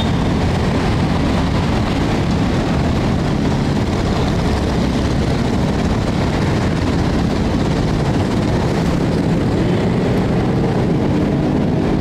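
Steady rumble of city road traffic on the flyover over the river, an even continuous noise with no single vehicle standing out.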